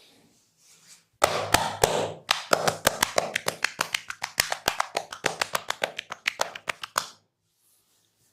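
Percussive massage by hand: palms striking the body in a quick, even run of slaps, about six a second, after a second of rubbing. The slaps stop suddenly about seven seconds in.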